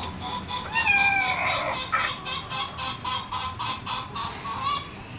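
Ayam ketawa chicken calling: one falling squawk about a second in, then a quick, even run of short clucks, about four a second.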